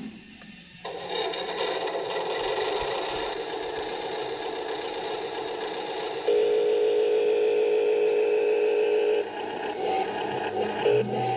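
Small electric gear motors of a toy RC construction machine running, a steady whine with plastic gear rattle. It grows louder and more even for about three seconds in the middle, then drops back.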